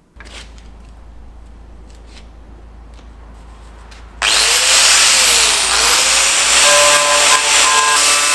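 A few seconds of low hum and faint knocks, then about four seconds in a corded angle grinder with a wire wheel starts up suddenly and loudly, brushing rust and paint off the rusted bottom edge of a steel truck door. Its whine drops in pitch and recovers as the wheel is pressed onto the metal.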